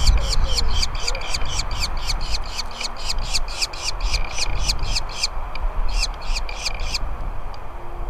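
Nestling birds begging in the nest: a fast run of short, high chirps, about five a second, with a brief break and a last few calls that stop about a second before the end. A steady low rumble sits underneath.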